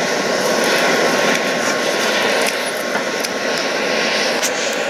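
Hair dryer forcing air through a pipe into a charcoal grill forge: a steady rushing whir with a faint motor whine, over the forced-draught charcoal fire, with a few faint crackling ticks.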